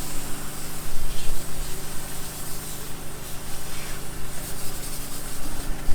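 Steady machine hum from a running engine with a constant hiss over it.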